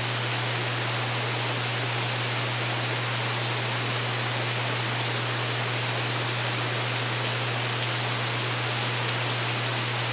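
Steady rain falling on the porch roof, an even hiss at a constant level, with a steady low hum underneath.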